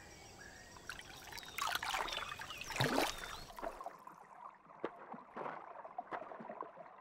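Water splashing and trickling as a toque macaque moves in the lake, loudest about two to three seconds in, then lighter scattered drips and splashes.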